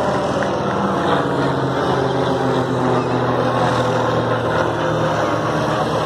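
Propeller engines of a four-plane aerobatic formation flying past overhead, a steady drone.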